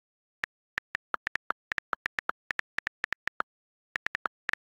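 iPhone on-screen keyboard clicks as a comment is typed: a quick run of sharp ticks, about six a second, some a little lower in pitch than the rest, with a short pause about three and a half seconds in.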